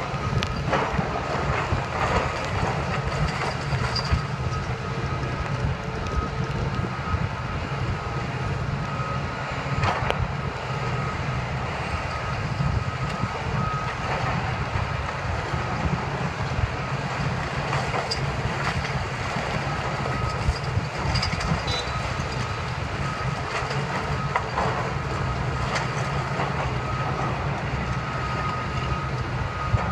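Tracked demolition excavator's diesel engine running under load, with crunching and knocks of concrete and debris breaking off and falling as the grapple tears at the building. A high beeping, like a back-up alarm, comes and goes in the background.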